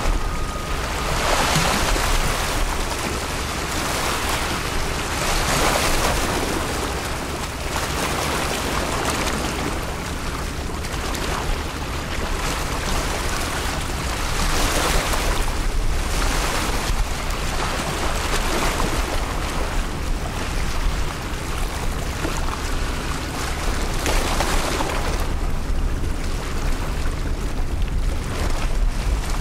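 Strong wind buffeting the microphone: a low rumble under a hiss that swells and fades in gusts every few seconds.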